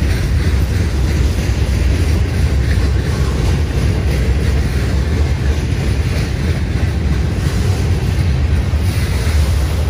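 Freight cars of a slowly moving manifest train rolling past, a steady low rumble of wheels on rail.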